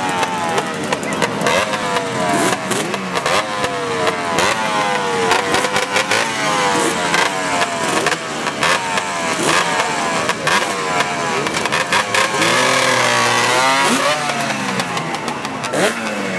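Sachs DKW 125's single-cylinder two-stroke engine running and being revved again and again, its pitch rising and falling with each blip of the throttle. About three-quarters of the way through comes a longer held rev that wavers.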